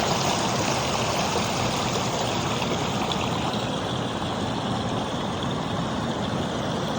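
River running high after a recent flood, its water flowing and babbling in a steady, even rush.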